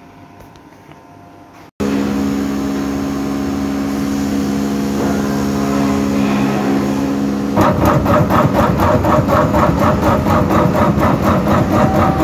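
A CNC wood router running: a loud steady motor hum that starts abruptly about two seconds in, joined near the middle by a fast even pulsing of about four to five beats a second.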